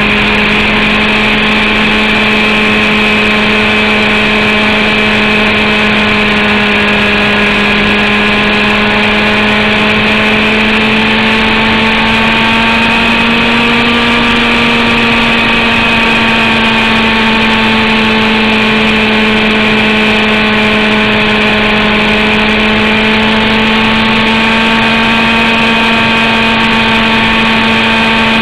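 Zenoah G29RC two-stroke gasoline engine of a radio-controlled model helicopter running at a steady high speed, heard close up from a camera on the airframe. Its pitch rises slightly about halfway through and then settles back.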